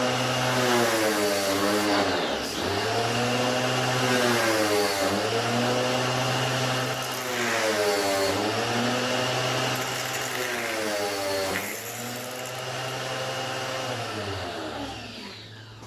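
Vacuum cleaner motor running with a steady whine that dips in pitch and recovers about four times, as though the motor is briefly loaded. It dies away near the end.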